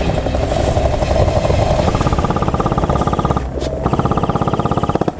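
Airsoft guns firing long full-auto bursts, a fast buzzing rattle with a short break about three and a half seconds in.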